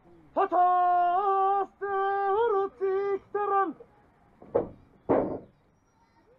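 Kagura performer's voice chanting the play's lines on one held, steady note in four drawn-out phrases, with small turns of pitch at the phrase ends. Two short breathy sounds follow, then quiet.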